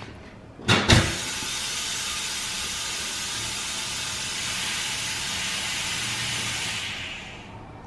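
Pneumatic tire changer: two sharp metallic clanks as the large rim is set on the turntable and clamped, then a steady hiss of compressed air for about six seconds that fades out near the end.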